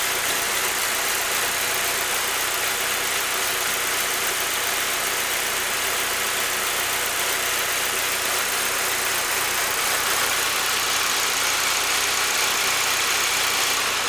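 2008 Saab 9-3's 2.0-litre turbocharged four-cylinder engine idling steadily, heard close up in the open engine bay.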